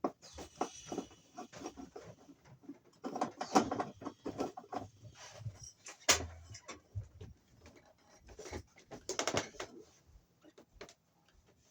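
Cover being taken off an electrical junction box: a string of small clicks, scrapes and knocks from the screws, tool and cover plate, with one sharp knock about six seconds in.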